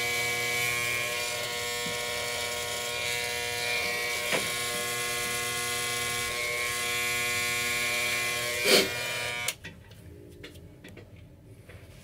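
Corded electric hair trimmer running with a steady buzz as it trims the edges of a beard and sideburn. There is a brief louder burst about nine seconds in, and then the trimmer is switched off, cutting out suddenly about a second later.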